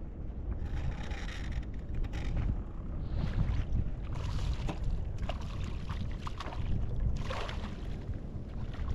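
Wind rumbling on the microphone over a kayak at sea, with several short bursts of water splashing beside the hull as a hooked fish is reeled in close.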